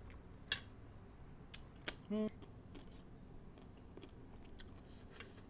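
Faint scattered clicks and taps of a spoon and fingers picking through a metal tray of pickled seafood, with two sharper clicks and a brief vocal sound about two seconds in.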